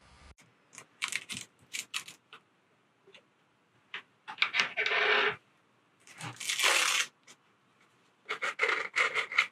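Clicks and rustles of a plastic UltraFit ultrasound headset being fitted and adjusted on a head. Near the middle come two rasps about a second long from its Velcro head strap being worked, and a quick run of clicks near the end.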